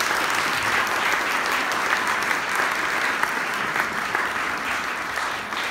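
Audience applauding after the band's final chord: many hands clapping in a dense, steady patter that eases off slightly near the end.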